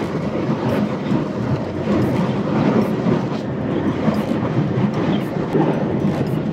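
Inside the cab of a Volvo truck cruising at speed: a steady diesel engine drone with road and tyre rumble.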